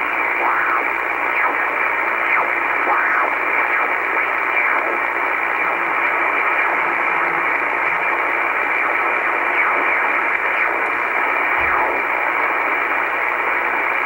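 Shortwave communications receiver tuned in upper sideband while its dial is turned across the 5.5–5.7 MHz range: a steady narrowband hiss of static, with brief faint whistles sliding past as the tuning sweeps over signals.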